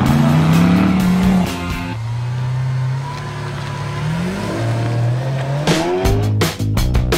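Sports car engine accelerating hard through the gears: its pitch climbs, drops at an upshift and climbs again, twice over. About six seconds in, rock music with heavy drum hits takes over.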